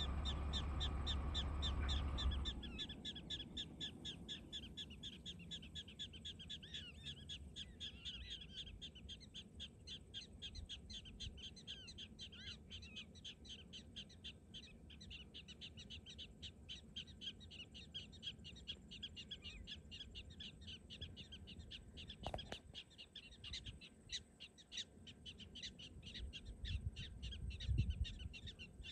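Prairie dogs giving rapid, repeated chirping barks, several calls a second overlapping in a steady stream, the persistent calling a colony makes when alarmed. A low rumble in the first couple of seconds, and a single sharp click about three quarters of the way through.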